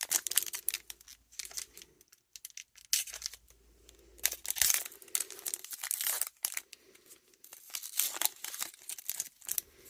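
Tough baseball-card pack wrapper being torn and crinkled open by hand, in irregular bursts of crackling with a short lull about two seconds in.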